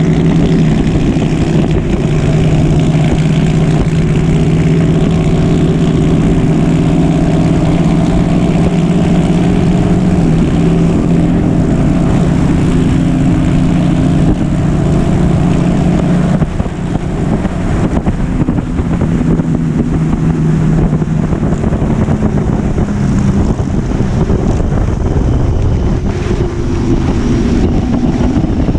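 Motorcycle engine running steadily at road speed, heard from a GoPro on the bike with wind rushing over the microphone; the engine note drops a little over halfway through, then holds lower.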